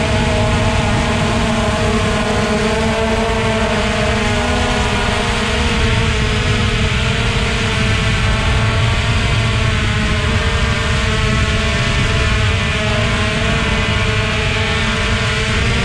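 Steady whine of a small remote-controlled aircraft's motor and propeller, its pitch wavering slightly, over a low rush of wind.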